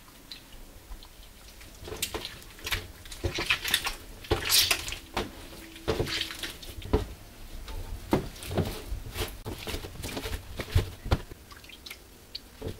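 Wet rice-flour dumpling dough being worked by hand on a stainless-steel counter: irregular wet slaps, squishes and drips as the water-soaked lump is pressed and kneaded, starting about two seconds in.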